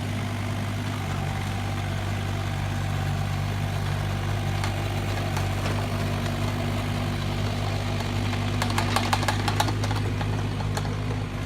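Kubota K008-3 mini excavator's three-cylinder diesel engine running steadily while it works, its note stepping up slightly about a second in. Near the end comes a rapid run of about a dozen sharp clicking knocks.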